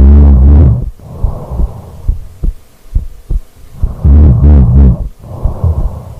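A sleeping woman's heartbeat thumping steadily and close, under her snoring: two loud snores, each followed by a softer airy breath.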